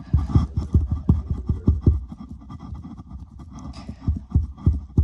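A marker poking and dragging through soft foam slime close to the microphone: a quick run of soft low thuds, several a second, with scratching. The thuds thin out in the middle and pick up again near the end.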